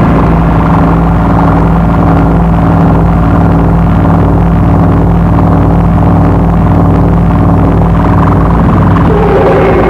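Power-electronics noise music: a loud, steady low electronic drone under a dense wall of distorted noise, with a warbling tone coming in near the end.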